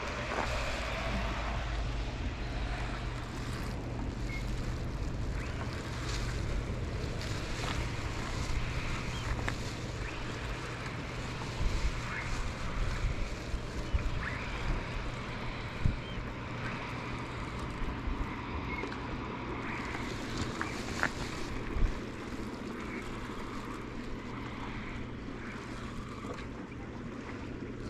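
Wind rumbling on the microphone over water washing against shore rocks, with a few scattered sharp clicks.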